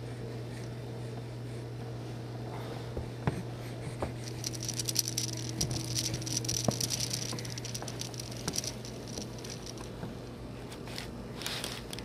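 Scratchy patting and rustling close to the microphone as a baby's hands move over carpet, busiest in the middle and briefly again near the end, over a steady low hum.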